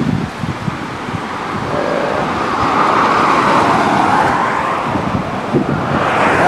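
Strong gusty wind buffeting the camcorder's built-in microphone, with a fluttering low rumble and a rushing swell that builds in the middle and comes again near the end.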